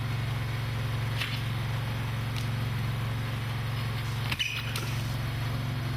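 A baler's gas engine running steadily, with a few faint clicks and a brief knock a little past four seconds in.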